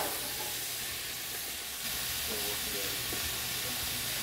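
Diced charque (salted, dried beef), freshly soaked and drained, sizzling as it fries in a hot cast-iron pan: a steady frying hiss.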